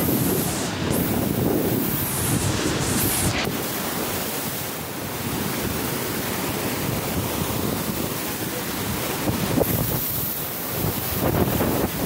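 Storm-surge waves breaking and churning over the shore in a typhoon, with strong wind buffeting the microphone.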